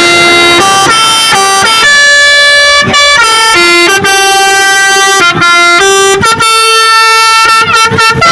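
Basuri bus's telolet horn, a multi-note air horn, playing a loud tune: a run of held notes, several sounding together, stepping from pitch to pitch without a break.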